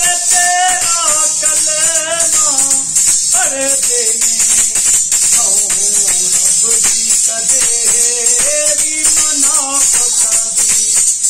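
A man singing a devotional kalam in a gliding, ornamented melody, keeping time on a chimta: the iron tongs' jingles rattle steadily under regular sharp strikes as the arms clap together.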